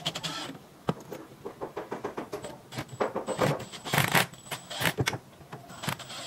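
Cordless drill driving screws through a metal folding bracket into wood in short bursts, with metallic clicks and clinks between them; the busiest run of drilling comes about three to four seconds in.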